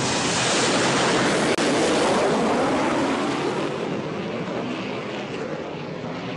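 Jet engine of a jet-powered school bus dragster running at full power with its afterburner lit as it launches down a drag strip: a steady rushing roar that fades over the last couple of seconds as the bus moves away.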